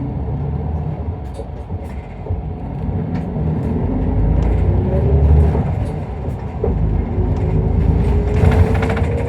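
Isuzu Erga Mio diesel bus pulling away from a stop and accelerating, heard from inside the cabin. A low engine rumble runs under a whine that climbs, drops back about two-thirds of the way through and climbs again. Scattered light rattles and clicks sound over it.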